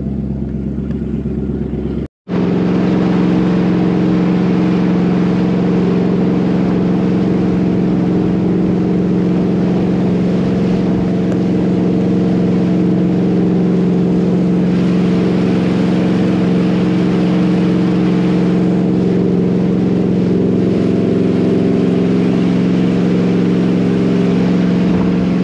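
A motorboat's engine running steadily at cruising speed, a constant hum with the rush of water and wind over it as the boat travels. The sound drops out for a moment about two seconds in, then carries on unchanged.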